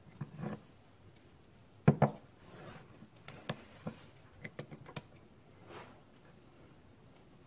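An aluminum bar and a steel machinist's square being handled and set down on a wooden workbench. There is a soft rub, a solid knock about two seconds in, then a quick string of light metallic clicks and taps.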